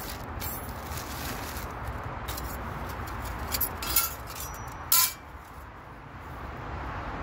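Plastic bag crinkling and thin metal panels of a folding firebox stove clinking and scraping as they are unwrapped and handled, in a handful of sharp bursts, the loudest about five seconds in. A steady low traffic rumble runs underneath.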